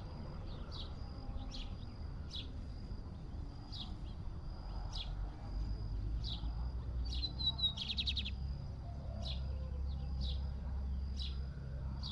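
A small songbird calling with short, sharp falling chirps, repeated about once a second, with a brief rapid trill about two-thirds of the way through.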